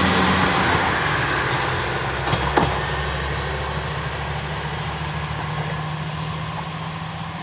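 Diesel engine of a Tenryū Hamanako Railway TH9200 railcar running with a steady low hum that fades as the railcar moves away. A couple of clunks come about two and a half seconds in.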